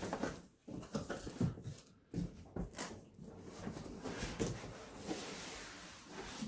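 Cardboard box being handled: flaps pulled open, then the box turned over and slid up off the foam-packed case. Short, soft scrapes and rubs of cardboard, followed by a longer sliding rustle near the end as the box comes off.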